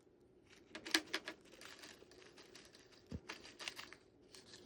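Light clicking and rustling from small craft materials being handled, in two short clusters.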